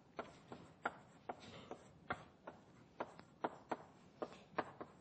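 Chalk tapping against a blackboard as words are written: a string of sharp, uneven taps, about two to three a second.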